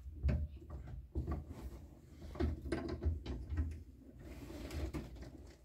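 Irregular clicks, knocks and scraping of metal parts as a gear lever extension is twisted by hand onto a VW Kombi's gear shift lever, its thread not catching.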